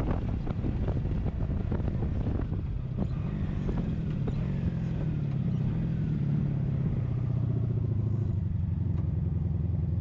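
1983 Honda Sabre's V4 engine running steadily under way. For the first few seconds, wind buffets the microphone; the buffeting eases about three seconds in, and the engine's steady hum comes through.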